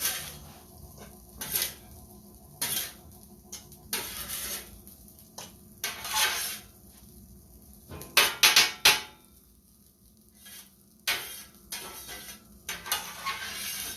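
A metal utensil scraping and clanking against a pan, stirring fried rice. The strokes are irregular, with a loud run of clatters about eight seconds in and a brief lull around ten seconds.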